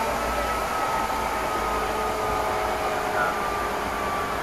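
Steady running noise inside a Meitetsu Inuyama Line express train car, with a faint steady whine over the rumble.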